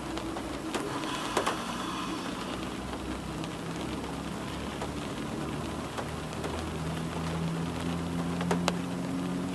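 Steady rain, with a few sharp drips striking a hard surface. A low droning hum builds under it over the last few seconds.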